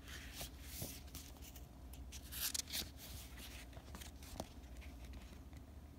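Paper rustling as a book page is turned, in short bursts about half a second in and again around two and a half seconds, with a few light clicks and knocks of handling.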